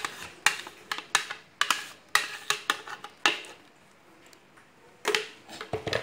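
A utensil knocking and scraping against a blender jug, about two sharp knocks a second, to clear out the last of the cake batter. After a short pause there are a few more knocks near the end.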